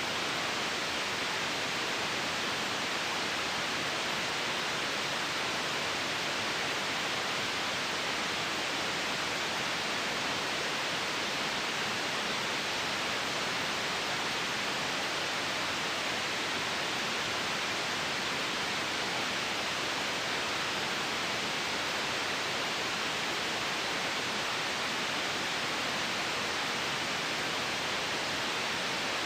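Steady white noise: an even, unbroken hiss that stays the same throughout, brightest in the higher range.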